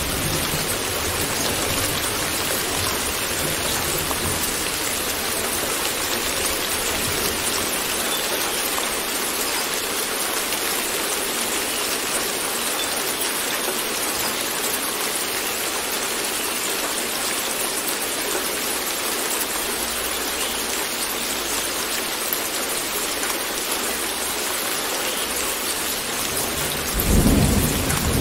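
Steady rain pattering evenly throughout. Near the end a deep rumble of thunder rolls in and is the loudest sound.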